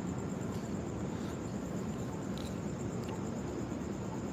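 Steady outdoor background noise, mostly low and even, with a faint continuous high-pitched tone over it.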